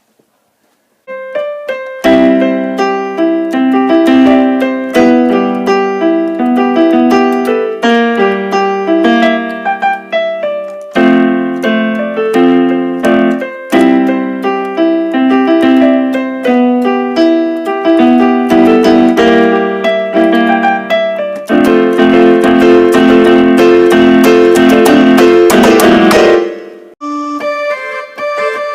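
Electric keyboard played in a piano voice: many notes and chords, with a few seconds of dense, loud notes struck again and again near the end, then lighter, higher notes.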